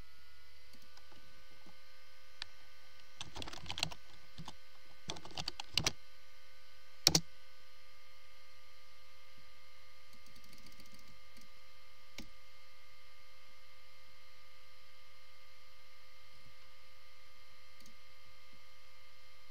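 Computer keyboard tapping in two short runs, with a single sharp click about seven seconds in and a fainter one later, over a steady electrical hum.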